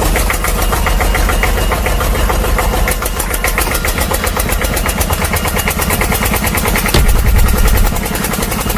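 A machine running steadily with a rapid, even clatter, louder for about a second near the end.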